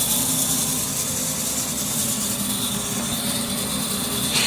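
Steady hum and high hiss of woodworking machinery running, with a brief sharp click near the end.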